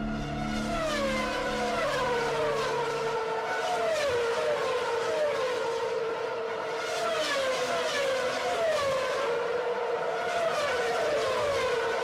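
High-pitched vehicle engine whine, its pitch falling and then levelling off over and over, about once a second.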